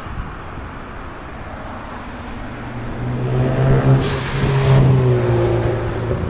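A motor vehicle driving past. A low engine hum rises from about two seconds in and peaks with a rush of tyre noise around four to five seconds. Its pitch then drops slightly as it moves away.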